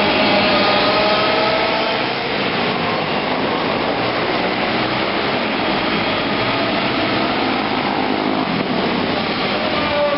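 Several small racing-kart engines running together as the pack laps an indoor dirt oval: a steady, rough noise with a faint engine whine that rises and falls.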